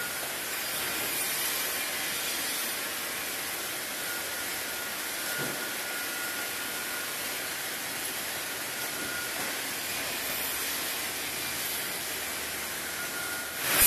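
Automated miter saw line's machinery and powered roller conveyors running with a steady hiss, a faint whistle-like tone coming and going, and a sudden loud rise at the very end.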